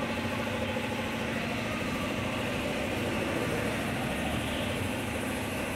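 Steady mechanical hum with one constant low tone, holding an even level throughout.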